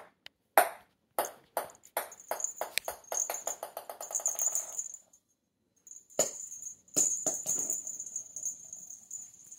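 A small hard toy ball bouncing on a wooden floor: clear knocks that come closer and closer together as it settles into a rapid rattle and stops about five seconds in. It is then tossed again near the end, with more bounces and a high ringing as it rolls.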